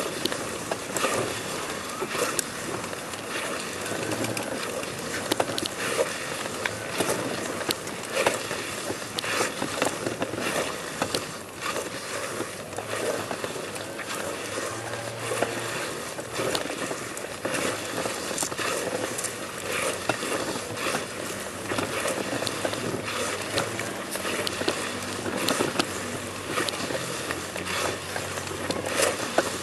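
A person crawling face down over stone paving: steady scraping and rustling of cloth dragging on the stone, with many small irregular clicks.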